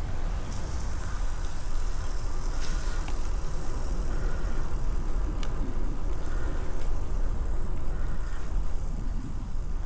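Steady low rumble of wind buffeting the microphone on a moving bicycle, with a few faint clicks.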